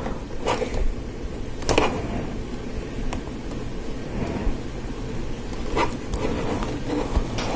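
Light plastic clicks and handling noise from Lego Technic parts as pneumatic hoses are fitted onto their connectors: four separate sharp clicks, the loudest about two seconds in, over a steady low background hum.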